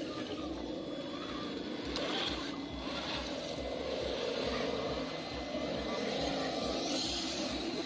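Electric motor and drivetrain of a Traxxas Defender RC rock crawler whirring steadily as it crawls over dirt and rocks.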